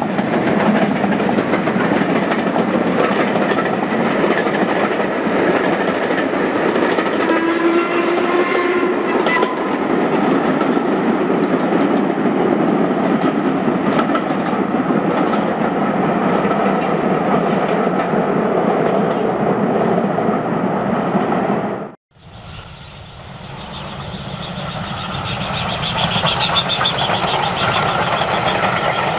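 Steam train running past: a BR Class 2MT 2-6-2T tank engine working steam with coaches, with a brief, slightly rising pitched tone about eight seconds in. The sound cuts off at about 22 seconds, then a GWR Manor class 4-6-0 tender engine with its train approaches and grows louder.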